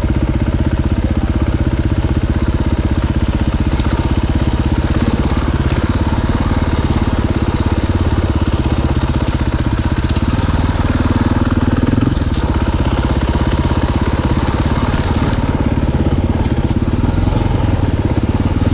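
Dirt bike engine running steadily while riding, with little change in engine speed.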